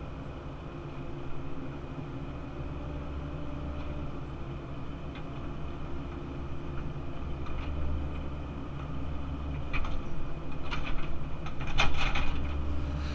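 Cat 308 CR mini excavator's diesel engine running steadily, heard from inside the cab, with hydraulic work going on. Several metallic clanks and rattles come near the end.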